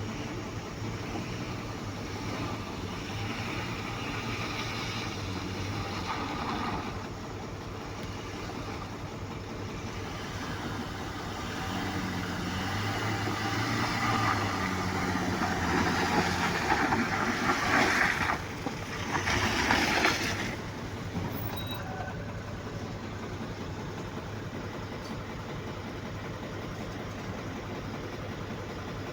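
An engine running steadily under a noisy rush of sound. It grows louder and its pitch shifts from about twelve seconds in, surges twice near twenty seconds, then settles back to a steady run.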